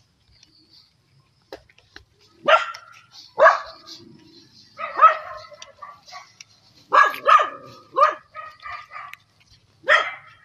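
A dog barking: about seven loud barks at uneven intervals, a couple of them in quick pairs.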